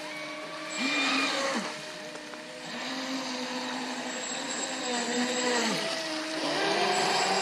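Several brushless RC racing boats running fast on the water: their electric motors whine, overlapping and gliding up and down in pitch as the throttle changes, over a steady hiss of spray from the hulls.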